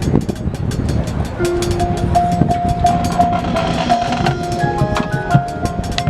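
High school marching band playing: the percussion keeps a fast, steady beat of sharp hits, and held wind chords come in about a second and a half in, with more notes stacking up near the end.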